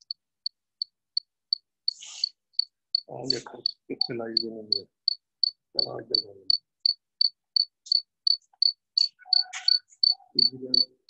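A cricket chirping steadily, about three short high chirps a second.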